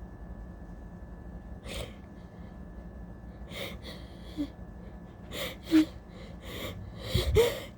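A person with an allergy attack sniffing and gasping in a string of short, sharp breaths, the loudest about two-thirds through and near the end, as a sneeze builds.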